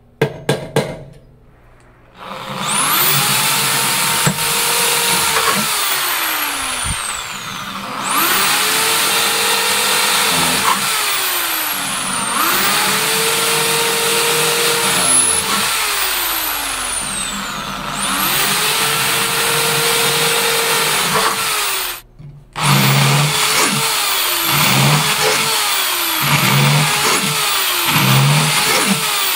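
A few sharp hammer taps on a punch marking an aluminium guitar-pedal enclosure, then a corded electric drill boring holes in the enclosure held in a vise. The drill's motor speeds up and slows in four long runs, stops briefly, then surges about once a second near the end.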